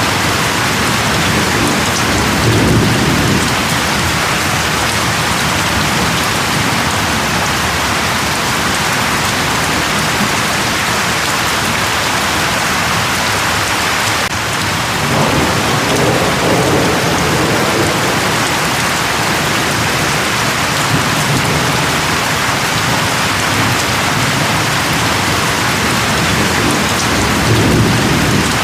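Steady rain falling, with low rumbles of thunder swelling about two seconds in, again about halfway through, and near the end.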